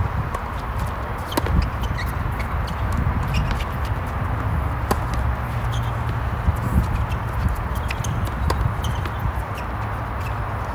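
Tennis rally on a hard court: tennis balls struck by rackets and bouncing, heard as a string of sharp, irregularly spaced pops, over a steady low rumble.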